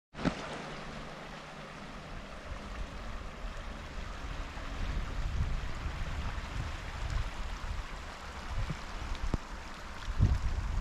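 Storm wind blowing, with a steady hiss and irregular low rumbling gusts buffeting the microphone.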